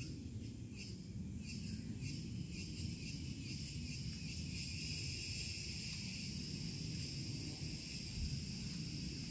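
Forest insects keep up a steady, high-pitched chorus over a constant low rumble.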